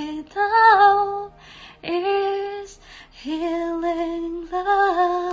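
A woman singing solo in three drawn-out sung phrases, the last a long held note that bends slightly in pitch.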